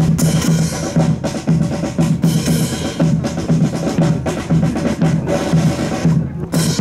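Marching band drums beating a steady march cadence: a bass drum about twice a second under snare drum patterns and rolls.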